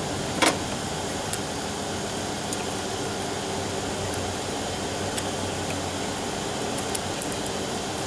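Steady mechanical hum of running machinery. A sharp click comes about half a second in, and a few lighter clicks follow as test leads are handled at the heater's terminals.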